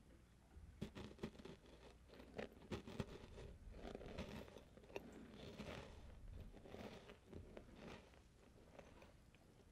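Faint, irregular crackling and tapping of rain falling outside, mixed with the soft crunching of a chocolate chip cookie being chewed.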